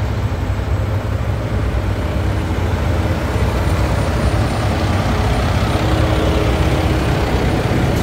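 Diesel engine of a Mack ready-mix concrete mixer truck running steadily with a deep rumble, growing a little louder toward the end as the truck is approached.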